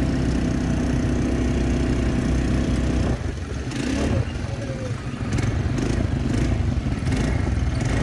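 Quad bike (ATV) engine running steadily while riding, its note dropping abruptly about three seconds in, followed by a few short knocks and rattles.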